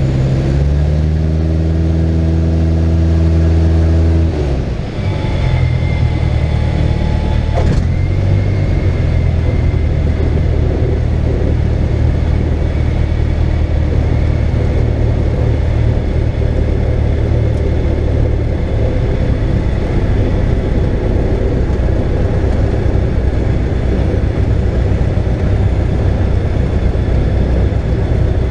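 Cessna 172's four-cylinder piston engine and propeller running, heard from inside the cockpit during a ground roll on the runway. The engine note changes about four seconds in, from a clean steady hum to a rougher, noisier running.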